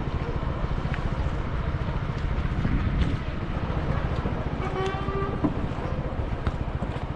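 Motorcycle engine running steadily on the move, its low firing pulse dominant throughout. About five seconds in, a short pitched beep sounds for about half a second.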